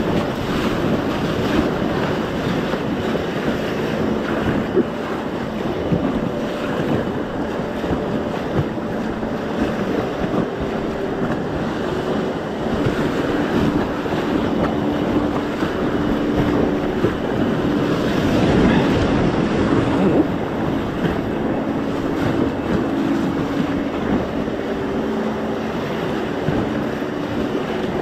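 Whitewater rapids rushing and splashing against an inflatable kayak as it runs down the river, with the paddle dipping into the water.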